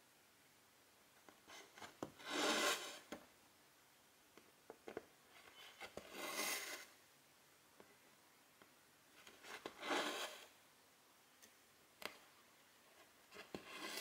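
Silk embroidery thread drawn through cross-stitch fabric: four soft swishes, one every three and a half to four seconds, with light ticks of the needle piercing the cloth between them.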